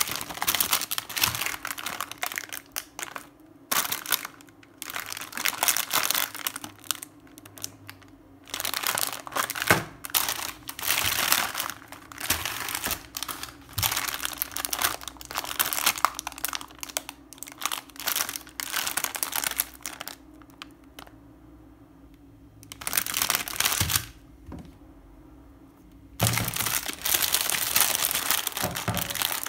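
Shiny plastic cookie packets crinkling as they are handled and turned over, in bursts with short pauses.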